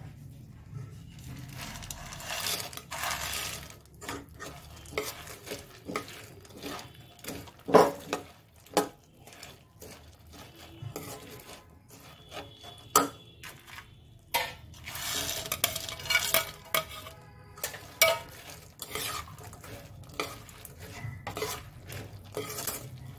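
Steel spatula scraping and knocking against a steel pan as fried gram-flour boondi is stirred through sugar syrup, with a few louder knocks along the way.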